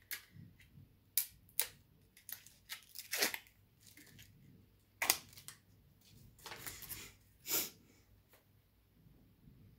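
Plastic packaging of a Scentsy wax bar being handled and opened: a string of sharp clicks and crackles, with a longer rustle a little past the middle.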